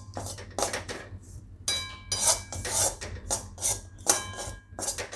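Flat spatula scraping and stirring coarse wheat flour roasting in ghee in a steel kadai, in repeated gritty strokes about two a second, with a faint metallic ring from the pan.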